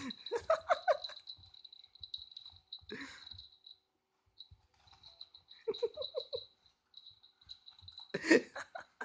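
A person laughing softly in short runs of quick chuckles, three times, the last one louder, over a faint steady high-pitched whine.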